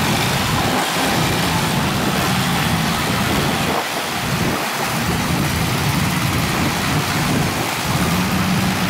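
Engines of a line of old farm tractors running as they drive slowly past one after another, a low steady engine hum under a constant hiss.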